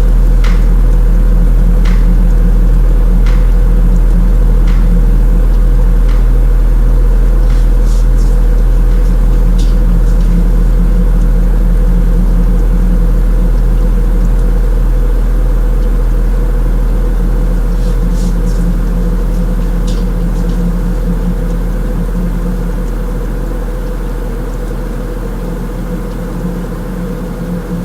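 Electronic drone music: a loud, steady low hum with several sustained higher tones and scattered sharp clicks, about every second and a half at first, slowly fading out through the second half.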